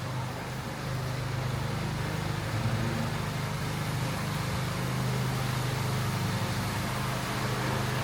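Street traffic: a road vehicle's engine running with a steady low hum over general city-street noise.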